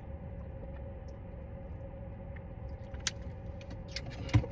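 Steady low hum inside a car cabin with a faint steady tone over it, and a light click about three seconds in followed by a sharper knock near the end.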